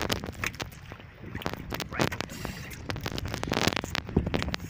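Irregular clicks, knocks and scrapes as a fishing handline with several small hooked fish is hauled in by hand over the side of a wooden outrigger boat, over a steady low rumble.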